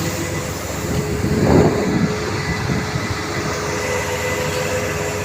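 Concrete mixer truck and loading machinery running steadily with a continuous heavy mechanical drone, swelling louder briefly about a second and a half in.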